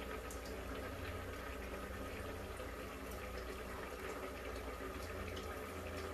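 Maggi noodles boiling in a pot on the stove: a steady bubbling hiss, with a few faint clicks.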